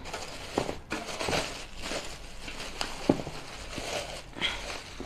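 Clear plastic wrapping crinkling and rustling as a stainless steel pot is handled and lifted out of its box, with a few light knocks.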